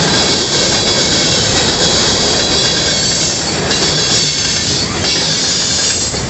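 Freight train's covered hopper cars rolling past close by: a loud, steady rumble of steel wheels on rail with a high-pitched wheel squeal over it. Near the end, the last car goes by.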